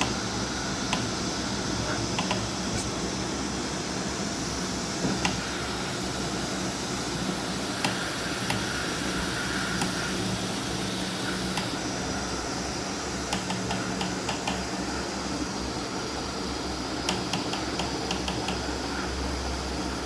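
A desktop FDM 3D printer running: a steady hum of cooling fans and stepper motors, with scattered clicks and two short runs of quick ticks from the moving print head, about two thirds of the way through and again near the end.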